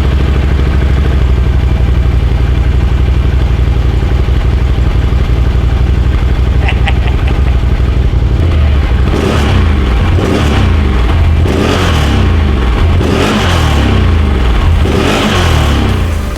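Stock exhaust of a 2016 Can-Am Renegade XMR 1000R ATV's V-twin engine, idling steadily for about eight seconds, then revved in about five short throttle blips.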